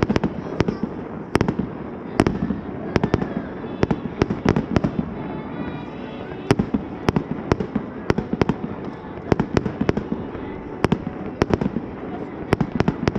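Aerial fireworks bursting in quick, irregular succession, about two sharp bangs a second.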